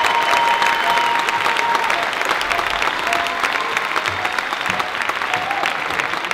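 Audience applauding: many hands clapping together at once in a dense, steady patter.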